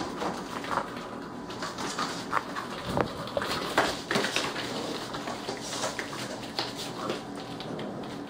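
Mastiff-mix puppies play-wrestling: scuffling with many short, sharp sounds scattered through, loudest about three to four seconds in.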